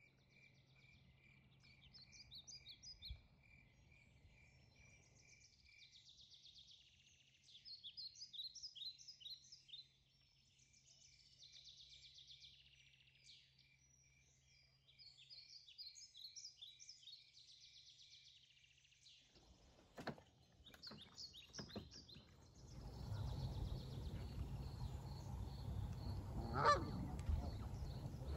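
Faint outdoor birdsong: small birds chirping in short repeated phrases. Near the end the background grows louder and Canada geese honk, one call standing out.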